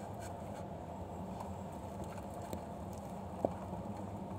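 Faint, steady low background with quiet handling as a fishing net is hauled slowly into a small boat, and one short sharp knock about three and a half seconds in.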